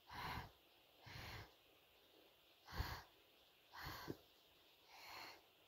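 Clear slime mixed with crushed pressed powder being squeezed and kneaded by hand, giving soft squelches about once a second, two of them ending in a small sharp pop.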